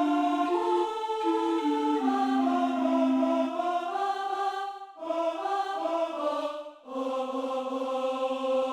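Wordless, choir-like vocal music: several voices holding long notes in harmony and stepping from chord to chord, with two brief breaks about five and seven seconds in.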